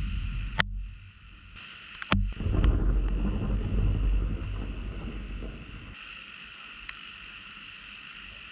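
Low rumble of thunder, muffled through a camera's waterproof housing. A sharp click about two seconds in is followed by a deep rumble that fades after about three seconds, and a lone tap comes earlier.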